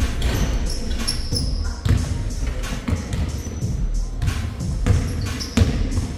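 A basketball bouncing on a hard court in short, irregular thuds about once a second, over background music.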